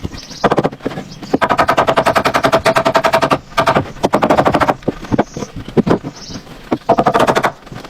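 Rapid runs of sharp knocking, about fourteen strikes a second: a long run in the middle, a short one just after, and another near the end.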